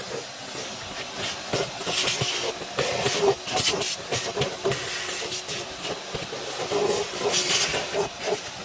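Compressed air hissing from an air-compressor blow attachment, surging in repeated bursts over a steady motor drone.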